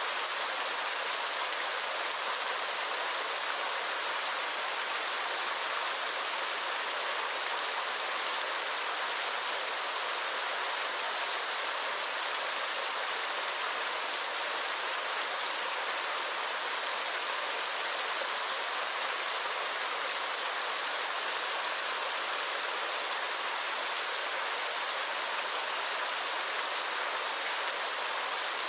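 Steady, unbroken rush of water, an even hiss with most of its energy in the upper range and little bass.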